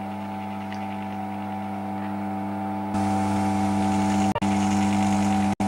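Steady hum of a small electric motor driving the automaton's figures, a low, even pitch. It gets louder with added hiss about three seconds in, then cuts out abruptly for an instant twice near the end.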